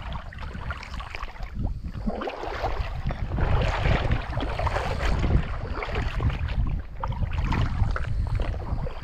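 Water lapping and splashing against a small fishing boat, with wind buffeting the microphone.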